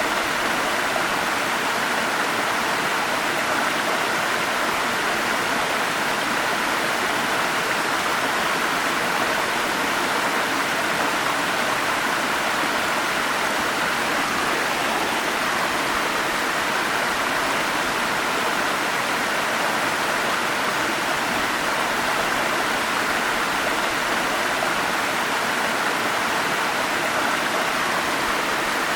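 Forest stream water rushing and splashing over rocks in a steady, even wash of sound.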